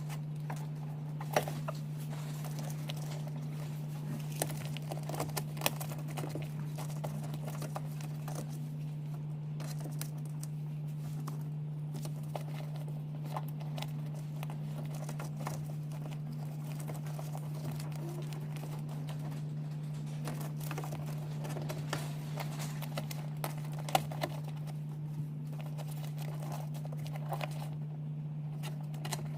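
Scattered clicks and taps of hands working on speaker wiring: cable-tying the tweeter cable and handling plastic parts. A steady low hum runs underneath.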